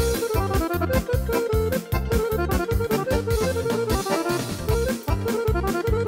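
Korg PA5x arranger keyboard playing a folk-dance style, with an accordion voice carrying the melody over bass and drums in a steady, fast beat.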